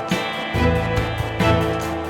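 Background music with a steady beat: a plucked guitar over a bass line.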